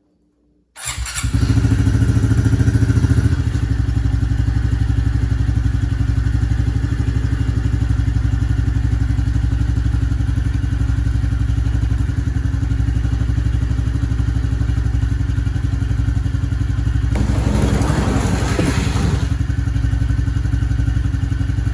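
2021 Honda CRF110 mini bike's small single-cylinder four-stroke engine starting up less than a second in, running a little faster for the first couple of seconds, then idling steadily on fresh oil. A brief rustling noise rises over the idle near the end.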